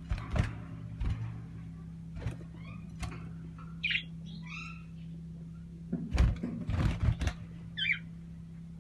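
A pair of small birds giving short chirps, a few of them in quick falling notes, among several sharp knocks and thumps, over a steady low hum.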